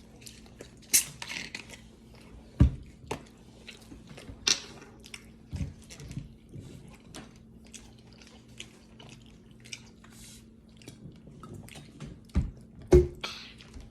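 Close-up chewing and mouth sounds of people eating chili cheese dogs: many small wet clicks, with a few brief hissy smacks and several dull knocks scattered throughout.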